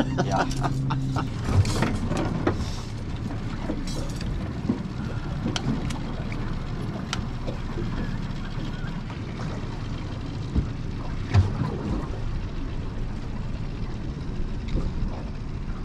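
Outboard-powered fishing boat running at slow trolling speed: a steady low rumble, with a few short knocks on the boat.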